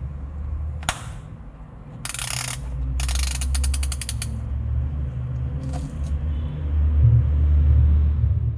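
Ratcheting closure dial on a cycling shoe clicking as it is turned. There is a single click about a second in, a quick cluster of clicks about two seconds in, then a fast run of evenly spaced clicks for about a second, and one more faint click near six seconds. A low rumble lies underneath and grows louder near the end.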